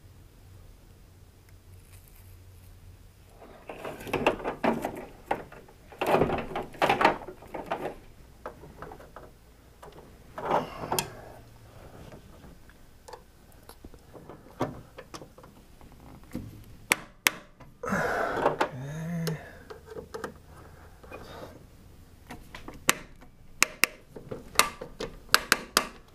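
Handling noises of electrical wiring work: insulated cable rustling and scuffing as it is pulled and fed into a metal electrical enclosure, with scattered sharp clicks and knocks against the panel. The noises come in irregular bursts, with a cluster of sharp clicks near the end.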